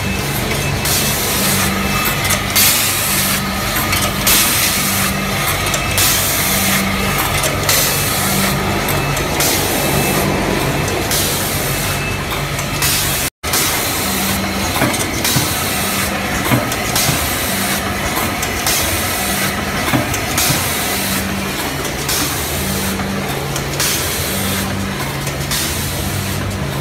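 Rotary premade-pouch packing machine running in its cycle: steady mechanical running with a low hum that pulses on and off about once a second, and repeated hisses and clatter.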